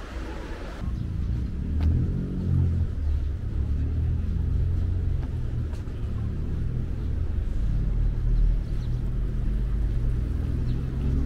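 A motor vehicle's engine running close by, a steady low rumble that sets in about a second in.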